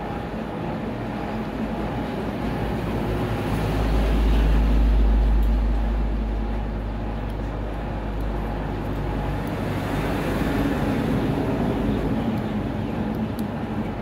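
Background road traffic: a steady low rumble that swells as a vehicle passes about four seconds in.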